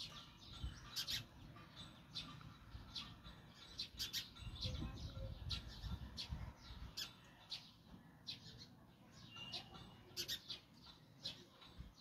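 Sparrows chirping: short, high chirps repeated at an uneven pace, often two or three in quick succession.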